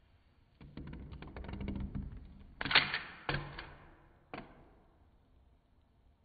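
A plastic Bakugan ball rolling and rattling across a wooden tabletop for about two seconds, then a sharp snap as it springs open, with two lighter clicks after it.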